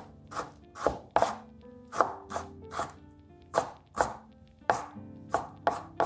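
Chef's knife mincing fresh ginger on a bamboo cutting board: an irregular run of sharp blade strikes, about two or three a second, some in quick pairs.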